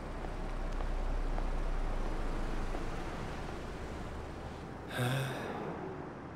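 City street traffic: a low rumble of cars passing that swells and then eases off, with a short, sudden sound about five seconds in.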